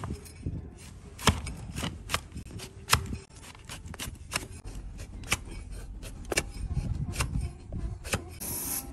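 A long-handled flat hoof-trimming blade paring a donkey's hoof horn against a wooden block, giving irregular sharp cracks and scraping clicks as curls of horn are shaved off, two of them much louder than the rest.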